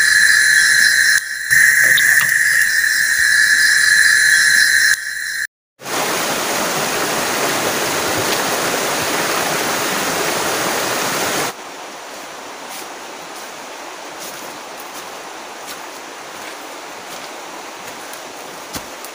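Forest insects shrilling in steady high tones with a pulsing chorus above. Five seconds in, this cuts to a river rushing loudly over rocks, and about halfway through it drops to a quieter steady hiss with a few faint ticks.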